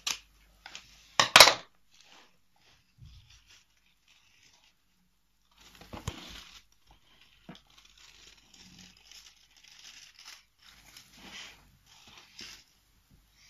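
Scissors snipping through a fringed paper strip, the loudest sound about a second in. Afterwards, quieter paper rustling and crinkling as the fringed strip is handled and pressed onto cardboard.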